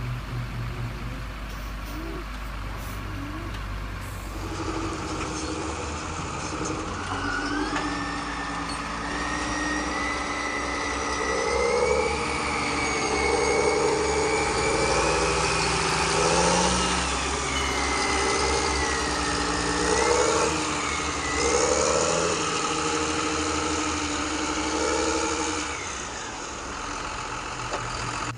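Tractor engine running and revving up and down, with a high whine that rises and wavers along with the revs; it sets in a few seconds in and eases off near the end.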